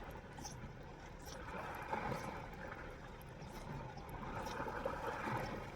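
Sea water washing and surging against the rocks, a steady noisy wash that swells a little now and then, with a few faint clicks.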